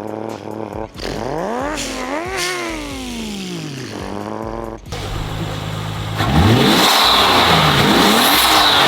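A man's vocal imitation of a Nissan Skyline R34 GT-T's engine: a buzzing, pitched engine note that climbs and drops again several times like revs through the gears. About six seconds in it turns louder, with a harsh hiss laid over the engine note.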